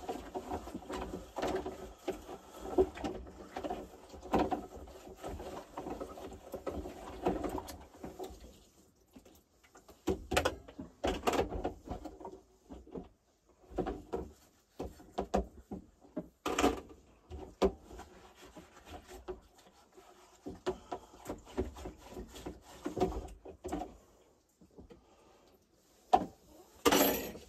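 Irregular knocking and clattering as things are handled and put away inside a small wood-panelled truck camper, with cupboard or drawer doors among them. A few sharp knocks stand out, the loudest near the end.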